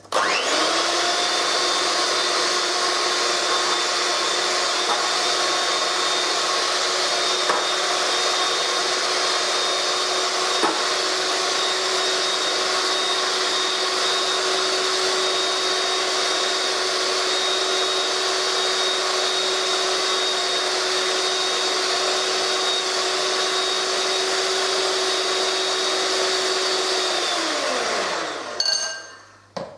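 VonShef electric hand mixer running at a steady speed with a constant whine, its beaters whisking egg and sugar in a glass bowl. Near the end the motor is switched off and winds down with a falling pitch, followed by a couple of short clicks.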